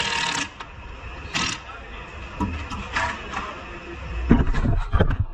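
Bursts from an air-powered wrench on the front suspension bolts: a longer burst at the start and short ones about a second and a half and three seconds in. Several heavy metal knocks and clunks follow near the end.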